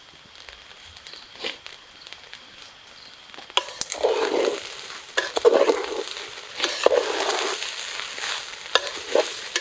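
Metal spatula stirring and scraping fried rice in a steel cooking pot over a wood fire, the rice sizzling. After a quiet start, a run of scraping, tossing strokes begins about three and a half seconds in, roughly one or two a second.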